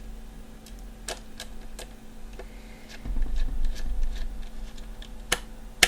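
Scattered small clicks and taps of a screwdriver and metal parts being handled while a screw is driven into a graphics card's cooler, with a low rumble of handling about three seconds in and a sharper click near the end.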